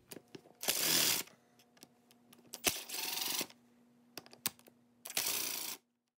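Hex key loosening the small steel screws of a KTM 530 EXC oil suction pump cover: three short bursts of scraping, about two seconds apart, with light metallic clicks between them. The sound cuts off suddenly near the end.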